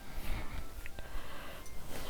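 Soft rustling of hands working product into damp hair, with a couple of small ticks.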